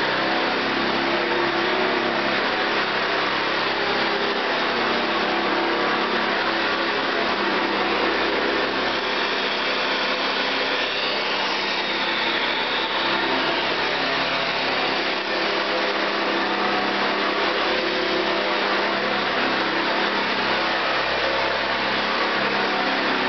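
1970s Hoover Convertible upright vacuum cleaner (model U4127) running steadily as it is pushed over a carpet rug, sucking up spilled oatmeal.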